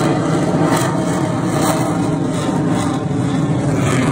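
Military fighter jet flying past overhead, its engine noise loud and steady.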